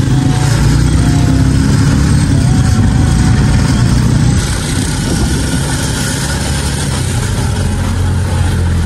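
A vehicle's engine and road noise, heard from inside an open-sided passenger vehicle moving along a road: a steady low drone that eases off a little about four seconds in.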